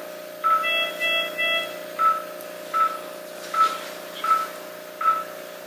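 Operating-room pulse oximeter beeping in time with the patient's heartbeat: one short beep about every three-quarters of a second, near 80 a minute, over a steady hum. About half a second in, three quicker, higher beeps of several pitches sound in a row.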